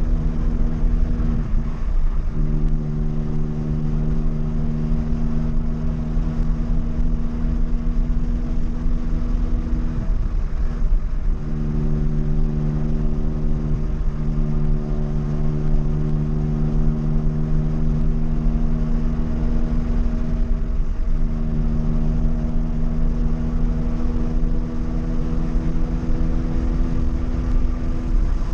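Volkswagen Gol's engine and exhaust running hard at a steady, fairly constant pitch, with a brief dip in the note several times as the throttle is eased and reapplied.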